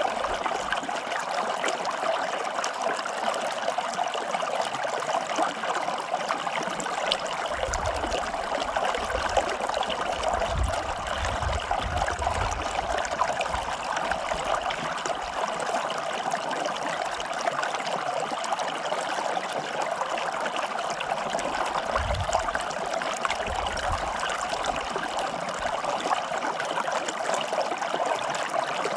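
Running water flowing steadily with an even, unbroken splashing rush, and a few brief low rumbles underneath.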